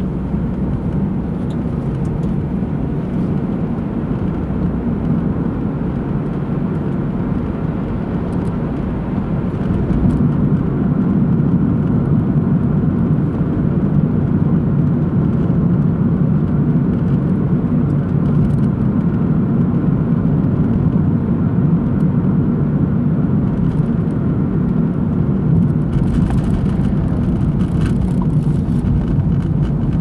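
A car driving along at steady speed, with a continuous low rumble of engine and tyre noise. It gets a little louder about ten seconds in.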